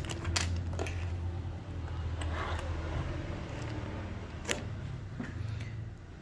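Plastic keyboard keycaps being handled and set down, giving a few light clicks, the sharpest about four and a half seconds in.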